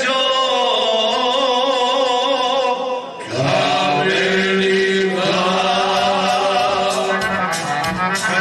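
Men's vocal group singing a traditional Krajina folk song, several voices together on long held notes with a wavering, shaking tone. A phrase ends about three seconds in and the next begins, a low voice holding a steady drone under the higher parts.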